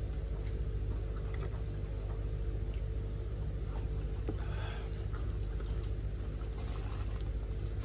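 Steady low electrical hum from the glass-door display refrigerator, with a few faint clicks and a brief rustle about four and a half seconds in.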